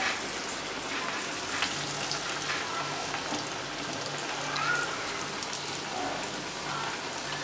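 Murunga keerai rotti (rice-flour flatbread with drumstick leaves) deep-frying in hot oil in a kadai: a steady crackling sizzle of oil bubbling around the dough.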